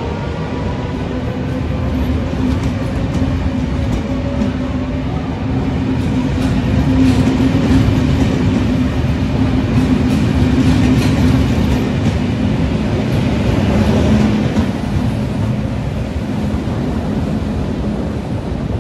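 Trenitalia double-deck regional electric train pulling out of the platform and passing close by: steady motor hum over wheel rumble, with light rail clicks in the middle stretch.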